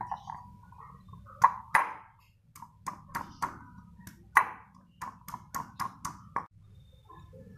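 Ginger being pounded in a metal mortar with a pestle: about fourteen sharp, uneven strikes, each with a short metallic ring, stopping about six and a half seconds in.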